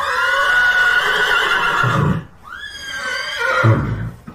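Horse whinnying twice, two long calls each lasting about one and a half to two seconds with a short pause between them.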